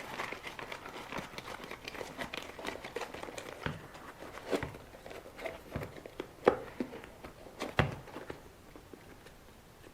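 Hands working a foam insert into an RC car tyre: soft crinkling and rustling with scattered light knocks, the loudest a little past six and a half and nearly eight seconds in.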